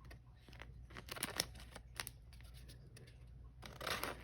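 Pokémon trading cards and their packaging being handled: short crinkling, rustling scrapes, several in a row, with a longer, louder one near the end.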